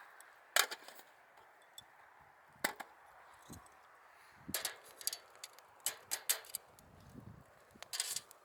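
Scattered sharp clicks and pops, about a dozen at uneven intervals, over a faint steady hiss.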